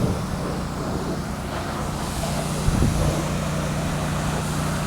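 Highway traffic going past, including a semi-truck: a steady low hum over a haze of road noise, with a brief low rumble about three seconds in. No horn sounds.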